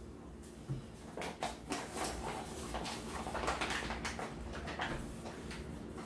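Rustling of a paper flour bag as its top is folded closed, with light knocks as it and a cardboard salt canister are handled and set down on a table.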